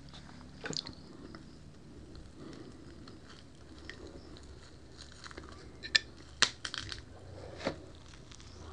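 Close-up crunching of crispy lechon kawali, deep-fried pork belly, as it is broken and chewed. A few sharp crackles come about six to seven seconds in, with quieter chewing between.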